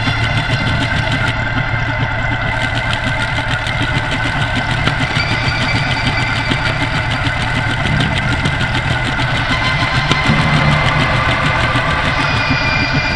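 A dense, steady drone of several held tones over a fast, even pulsing throttle, machine-like but musical, as in an ambient noise or tape piece. Higher tones join about five seconds in, and a low tone swells near the end.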